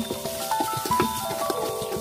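Background music: a melody of held notes that step up and down in pitch, over light percussive ticks.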